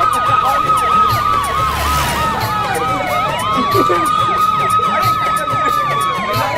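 Siren sound effect from a DJ mix on a loudspeaker: a slow wail that falls and climbs again about three seconds in, over quick yelping chirps about three a second and a low bass beat.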